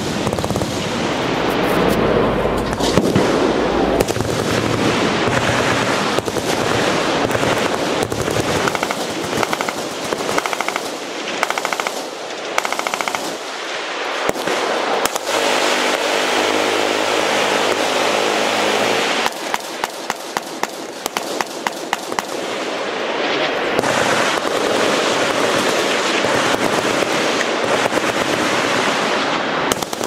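Massed automatic fire from many machine guns on a firing line: continuous, overlapping bursts. A stretch of steady buzzing fire comes in the middle, then the fire thins into separate distinct shots before building again.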